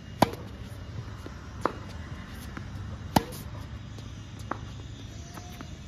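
Tennis balls struck in a rally: two loud racket hits from a Babolat Pure Aero on topspin forehands, about three seconds apart, with fainter hits from the partner across the court in between.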